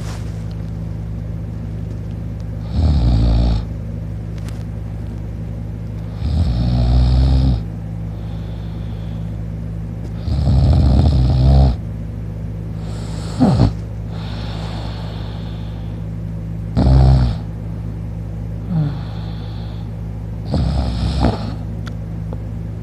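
A man snoring while asleep on his back with his mouth open: about six rough snores, one every three to four seconds, with breathy exhales between them. A steady low hum runs underneath.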